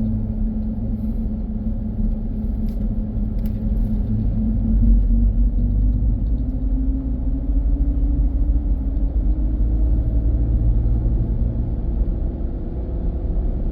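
A car driving along a road, giving a steady low rumble of engine and road noise with a faint engine hum.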